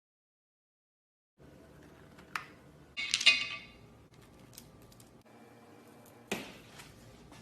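Slime being handled: after a second and a half of silence, a sharp click, then a short crackly burst about three seconds in, and another click near the end.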